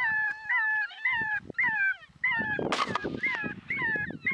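Electronic predator call playing a looped series of short, high canine yelps, about two to three a second, each rising then falling in pitch. A rough, noisy burst cuts in about two and a half seconds in.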